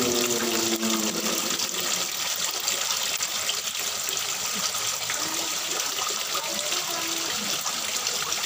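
Steady stream of water pouring from an outlet pipe into a koi pond, with koi splashing at the surface.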